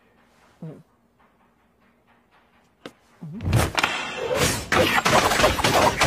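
Anime sound effects: a hushed stretch with a faint low hum and a single click. Then, about three seconds in, a heavy thud gives way to a loud, dense rush of slashing strokes: chalk writing on the blackboard played as dramatic sword-stroke effects.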